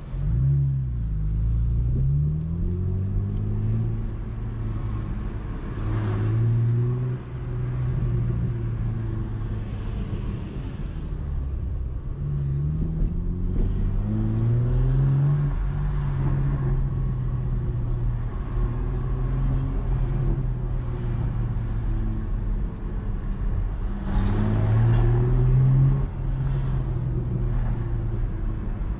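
Chevrolet Camaro engine driving through town, heard from inside the cabin. It pulls away at the start with revs rising and stepping down through upshifts, cruises steadily, and speeds up again about halfway in and near the end.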